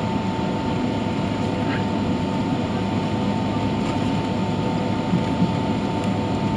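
Cabin noise inside a Boeing 767-300ER taxiing: the steady rush of the jet engines at low power, with a steady whine running through it.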